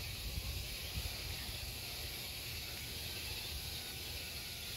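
Outdoor background: a steady high hiss with a low, unsteady rumble of wind on the microphone.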